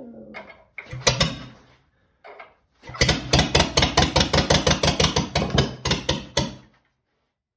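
Ford flathead four-cylinder engine turning over and firing on starting fluid. After a couple of short bursts it runs for nearly four seconds as an even string of sharp pops, about six a second, then dies; it cannot keep running without a fuel supply.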